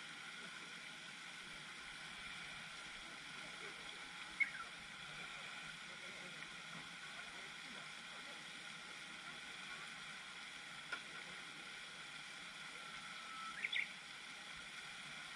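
Faint steady outdoor background noise by a pond, with two brief chirps, one about four seconds in and one near the end.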